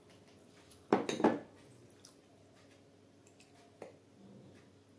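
A small glass bowl set down on the table: two loud knocks in quick succession about a second in. A single lighter click follows a little before four seconds.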